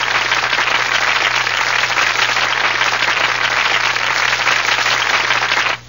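Audience applauding: a steady, dense spell of clapping that cuts off suddenly just before the end.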